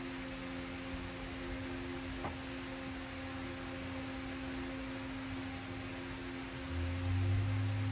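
Electric fan running steadily, its motor giving a constant low hum over a soft hiss of moving air. Near the end a deeper, louder hum comes in.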